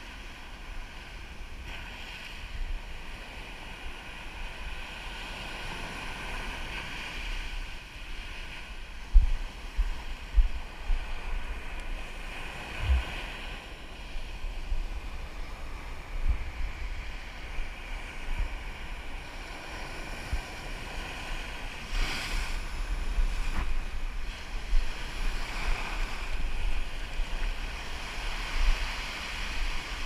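Surf washing over a shallow rock reef, swelling and receding in waves, with wind buffeting the microphone in irregular low thumps.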